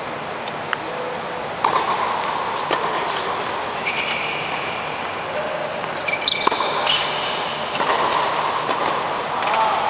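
Tennis rally on an indoor hard court: a tennis ball struck by rackets and bouncing on the court, a sharp knock several times, with brief squeaks of tennis shoes, over steady background noise.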